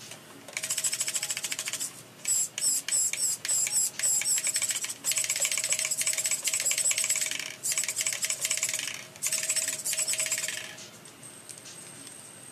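NSDRC RS100 micro servo on a 1/24 scale rock crawler steering the front wheels back and forth: repeated bursts of fast, buzzing gear whine. The bursts stop about eleven seconds in, leaving a faint steady high whine from the powered-up electronics.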